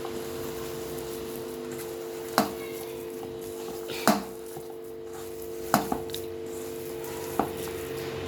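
Vada batter being mixed in a bowl: about five sharp knocks and clinks against the vessel, spread over several seconds, over a steady hum.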